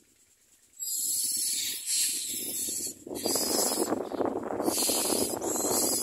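Common myna nestlings begging for food: repeated bursts of raspy, hissing calls that start about a second in. A louder, lower scratchy noise joins about three seconds in.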